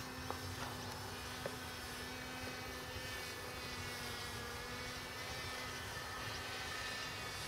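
Steady, even drone of a distant RC powered paraglider's motor and propeller, holding a constant pitch at cruise throttle.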